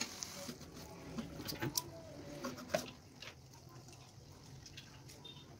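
Metal spatula clicking and scraping against a nonstick wok while stir-frying, with scattered knocks in the first three seconds, then quieter.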